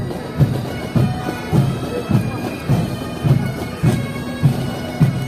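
Pipe band playing: bagpipes sounding a steady drone and melody over a bass drum struck about twice a second.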